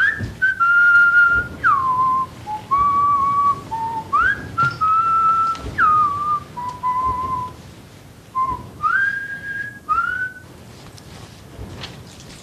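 Someone whistling a slow tune of held notes, sliding up and down between them. It stops about ten seconds in.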